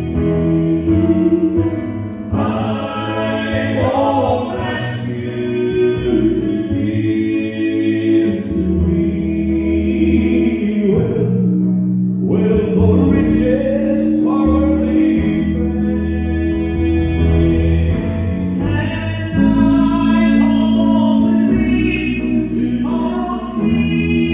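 Several voices singing gospel music in close harmony over instrumental accompaniment, in phrases of long held chords.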